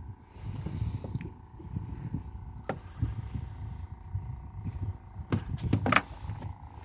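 Wind buffeting the microphone as an uneven low rumble, with a few sharp knocks about five to six seconds in.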